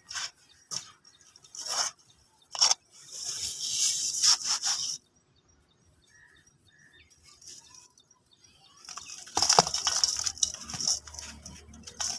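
Dry, brittle material being crumbled, crisp crackly crunches: several short crumbles over the first five seconds, a pause, then a longer, louder stretch of crumbling near the end.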